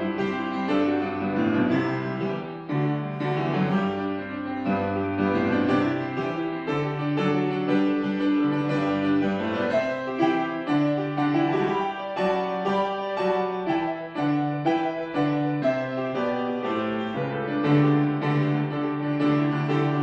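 Grand piano played solo: a flowing, unbroken stream of notes over held bass notes.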